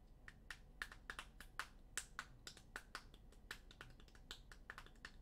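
Typing on a computer keyboard: quick, irregular key clicks, several a second, starting just after the beginning.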